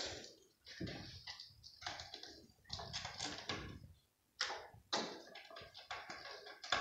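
A cat scrabbling and batting at a toy ball on a carpeted cat tree with sisal posts: irregular bursts of claws scratching and tapping on the fabric and sisal, with soft knocks.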